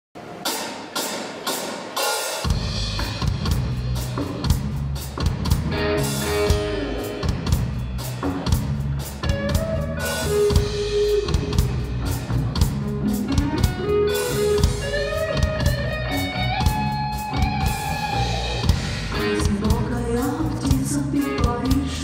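Live rock band playing an instrumental intro: drum kit with bass drum and snare from the start, with bass guitar and electric guitar coming in a couple of seconds later and a melody line stepping over the beat.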